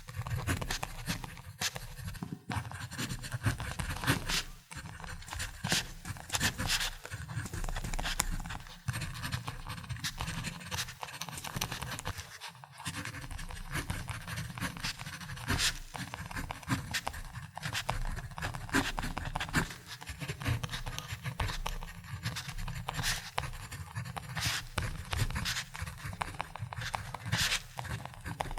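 Ballpoint pen writing on paper: continuous irregular scratching strokes with short taps and lifts of the pen.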